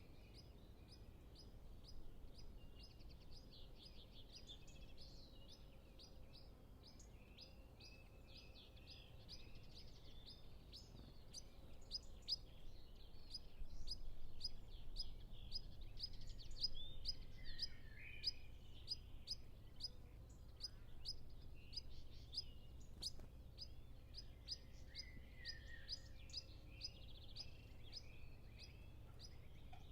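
Pied flycatcher calling: a fast run of short, high-pitched notes, about three or four a second, with other birds singing farther off and a faint low rumble underneath.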